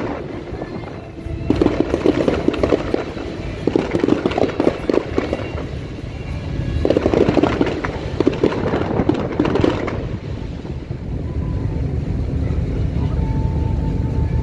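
Fireworks going off in a display: rapid crackling pops in three spells of a couple of seconds each, easing off after about ten seconds.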